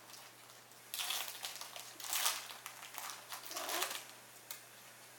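Foil Pokémon booster pack wrapper crinkling as it is torn open by hand, in several rustling bursts from about a second in until about four seconds in.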